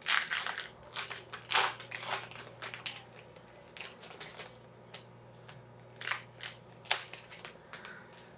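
Plastic wrapper of a baseball card pack crinkling and tearing as it is ripped open by hand, in irregular sharp crackles that are thickest in the first three seconds and thin out after.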